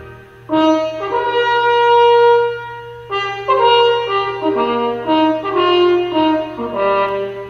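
French horn playing a solo melody: a short note, a long held note, then a run of shorter notes.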